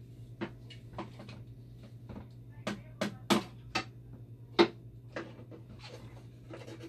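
Irregular sharp clicks and knocks of fittings and parts being handled inside a dialysis machine's hydraulic section during a heat exchanger swap, about a dozen of them, the loudest about two-thirds of the way through. A steady low hum runs underneath.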